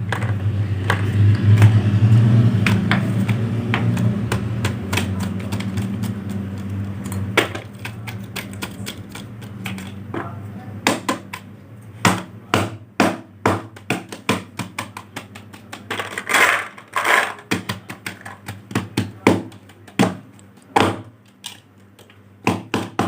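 A steady low hum for the first several seconds, then a long run of irregular sharp clicks and knocks, a few a second, from small hard objects being handled.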